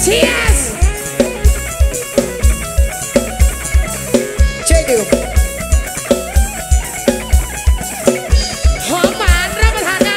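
Live Thai sound-truck band music in an upbeat sam cha dance rhythm: a steady kick drum about twice a second under a plucked string melody.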